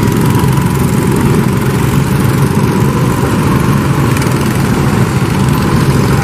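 Small go-kart engines running steadily, with karts starting off around the track.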